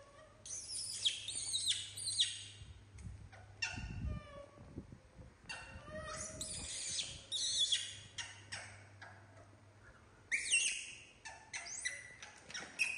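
Young macaques giving high-pitched squeals and chirps in three bouts, with a brief low thump about four seconds in.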